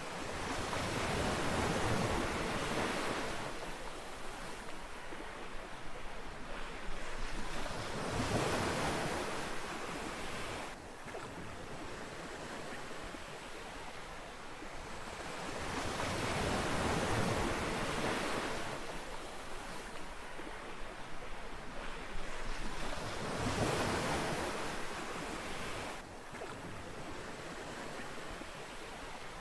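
Ocean waves breaking and washing up a beach in a continuous rush of surf, swelling and ebbing as each wave comes in, about every five to eight seconds.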